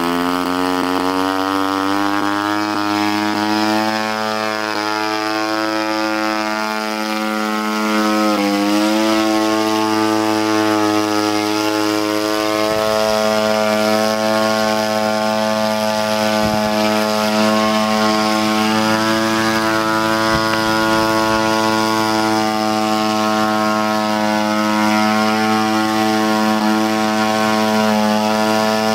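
Small engine of a homemade crop-spraying rotorcraft running and driving its rotor, rising in pitch over the first few seconds, dipping briefly about eight seconds in, then holding a steady pitch as the craft flies.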